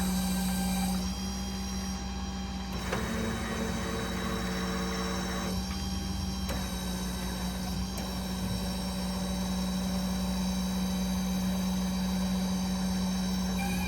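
Machinery running steadily: a constant hum with a high whine over it, whose upper tones change a few times along the way.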